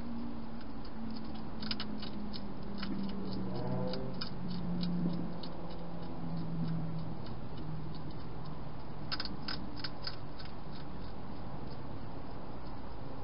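Wild hedgehog crunching dry food inside a plastic feeding box: irregular crisp clicks in short clusters, with a quick flurry about nine seconds in, over a faint low drone.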